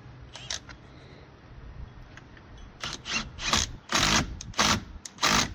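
Hand ratchet wrench tightening the steering wheel's centre bolt: a few light clicks, then from about three seconds in about six quick rasping ratchet strokes in a row.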